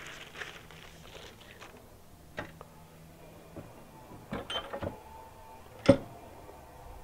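Heat press being handled and pulled shut, with light creaks and clicks from its mechanism and a sharp clunk about six seconds in as it closes.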